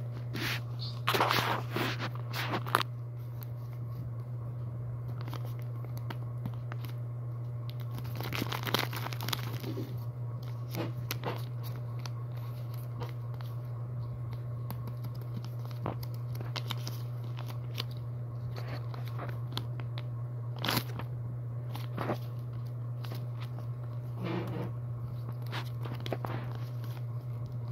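Folded paper of a handmade blind bag being handled and unwrapped: crinkling and rustling in irregular bursts, heaviest about a second in and again around nine seconds, over a steady low hum.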